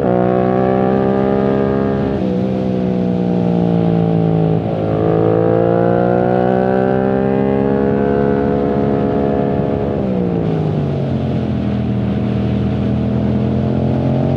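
2021 Yamaha MT-07's parallel-twin engine through a full titanium exhaust without its dB killer, running loud under way. The revs rise and fall: a brief dip about four and a half seconds in, climbing after it, then dropping about ten seconds in and picking up again near the end.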